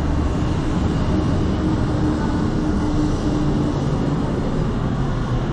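Steady low rumble of outdoor city ambience, with a faint steady hum over the first few seconds.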